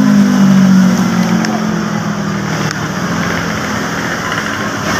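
Road traffic: a passing motor vehicle's engine hum, loudest in the first second and then fading, over steady traffic noise.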